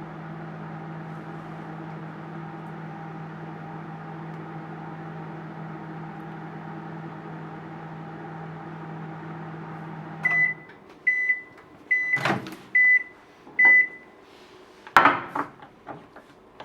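Microwave oven running with a steady hum, then stopping about ten seconds in and giving five short, evenly spaced beeps at the end of its cycle. A clunk comes among the beeps and a louder knock a little later.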